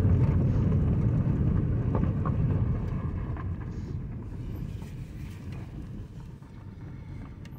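Low rumble of road and engine noise inside a Kia car's cabin while driving. About three seconds in it begins to fade steadily as the car slows down.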